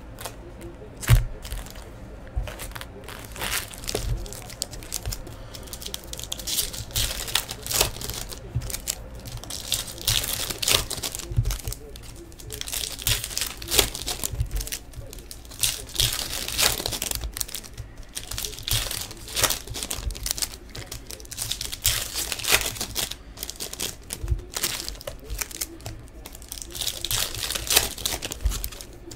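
Foil wrappers of Bowman baseball card packs being torn open and crinkled by hand: a steady run of irregular crackling rustles.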